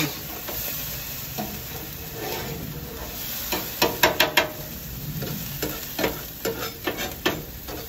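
Bacon, sausage and diced potatoes sizzling steadily on a Blackstone 17-inch propane griddle, with a metal spatula scraping and clacking on the steel cooktop in quick strings of clicks, loudest about four seconds in and again through the second half.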